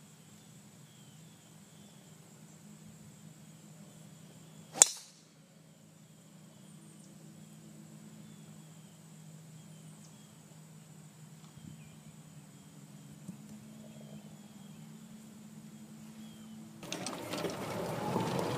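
A golf driver striking a teed ball: one sharp, loud crack about five seconds in, over faint insects chirping. Near the end, rustling and knocking as the camera is handled.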